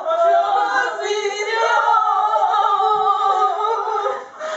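Several voices singing together in long, held notes. The singing fades out about four seconds in.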